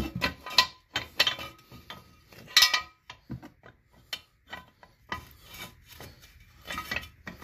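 Steel jack stand being set and adjusted under a lawn-mower transmission: irregular metal clanks, clicks and scrapes, the loudest clank about two and a half seconds in.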